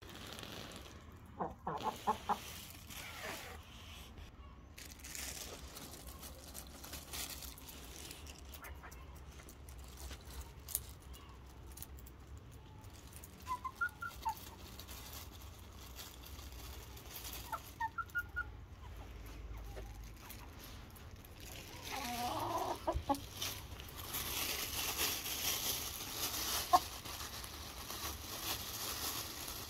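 Hens clucking in short calls every few seconds, with a louder burst of calls about three-quarters of the way through. A plastic bag of popcorn rustles near the end.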